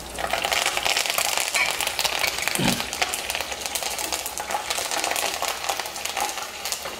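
Fresh curry leaves crackling and spitting in hot oil with garlic and fenugreek seeds, a dense steady run of fine pops as a wooden spatula stirs them in a nonstick kadai.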